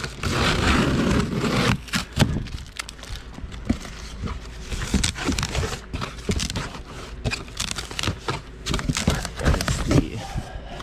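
Packaging rustling and crinkling as parts are unpacked, loudest in the first two seconds, followed by scattered clicks, knocks and scrapes of things being handled.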